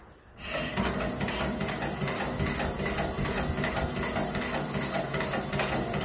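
Atlas hand filer filing a steel tooth on a circular sawmill blade: a steady, rough metal-on-metal rasping that starts about half a second in.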